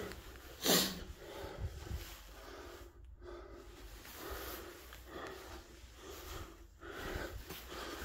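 A short snort or sniff through the nose about a second in, then faint breathing and the rustle and low bumps of a phone being carried about.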